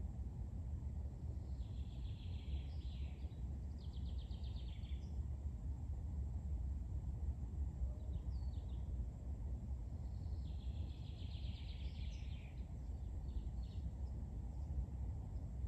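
A songbird singing short trilled phrases, two near the start and a longer one past the middle, with a few single notes between, over a steady low rumble.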